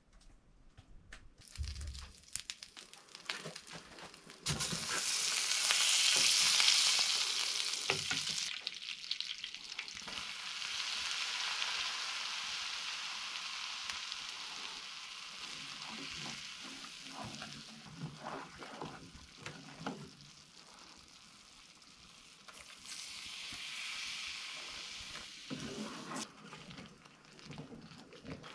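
Beaten eggs sizzling in a small copper pan on a wood-burning stove. The sizzle starts suddenly about four seconds in, is loudest for the next few seconds, then settles and swells again near the end. A wooden spoon clicks and scrapes in the pan as the eggs are stirred.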